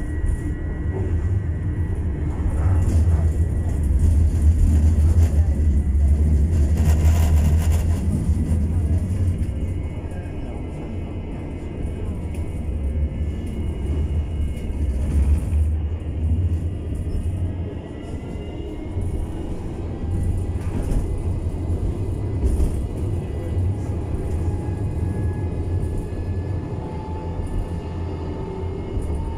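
Tram running along the street: a steady low rumble of the wheels on the rails and the car body. A whine from the traction drive rises slowly in pitch near the end as the tram picks up speed.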